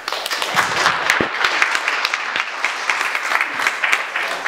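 Audience applauding, many people clapping at once to welcome a speaker up to the microphone. The clapping dies down at the very end.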